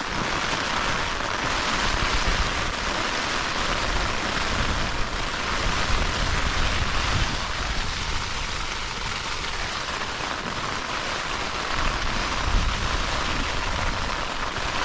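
Heavy rain drumming on a tent's flysheet from inside the tent, steady and dense, with low gusts of wind rising and falling underneath.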